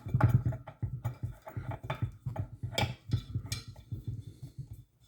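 Irregular clicks, knocks and rattles of metal hose fittings and tools being handled on a hose reel's swivel, with a few sharper clinks.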